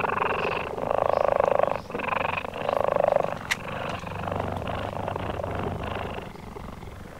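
Cheetah purring in a series of rough, pulsing bouts that grow fainter after about six seconds. The purring is a sign that the cheetah is relaxed and not angry.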